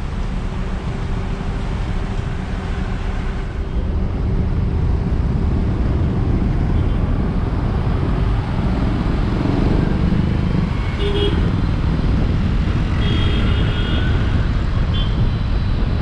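Steady road noise of a car being driven, a low rumble of tyres and engine that grows a little louder about four seconds in.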